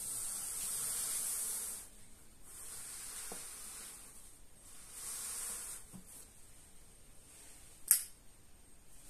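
Cardboard shipping box handled and slid by gloved hands, making soft hissing scrapes in three stretches. Near the end, a folding knife's blade clicks open sharply once, the loudest sound.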